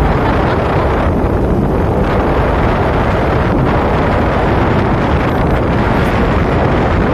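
Steady, loud wind buffeting a phone microphone on a moving motorbike at about 40 km/h, with road and engine rush underneath.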